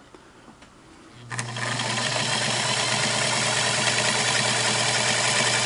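Singer Model 237 sewing machine starting up about a second in and then running steadily, with a constant motor hum, as it sews a straight stitch through muslin layered with doubled fleece.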